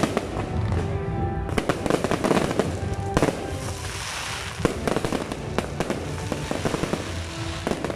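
Aerial fireworks barrage: shells bursting in rapid, dense succession, with crackling stars. Midway the bangs thin to a hissing crackle, then pick up again.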